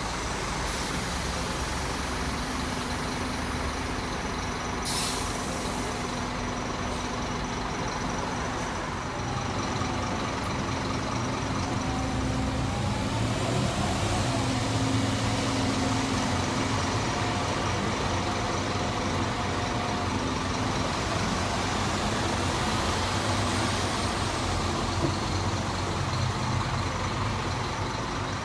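City buses running at a bus stop, their engine hum swelling through the middle as a bus drives close past, over steady traffic noise. A short air hiss about five seconds in.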